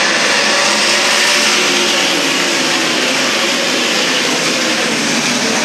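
A field of winged sprint cars racing in a pack, their 360-cubic-inch V8 engines at full throttle in a steady, loud, blended din.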